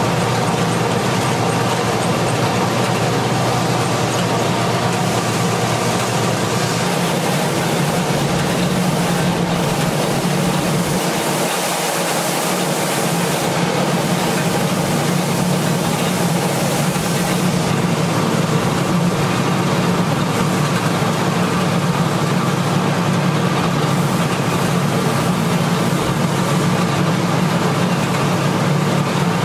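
Marvel 8-MK-1 Series 8 Mark vertical band saw running with no workpiece, its motor and blade drive making a loud, even mechanical hum.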